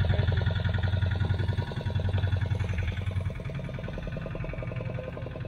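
Boat engine idling with a fast, even beat.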